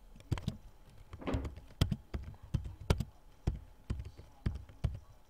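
Computer keyboard being typed on: irregular sharp key clacks, about two to three a second.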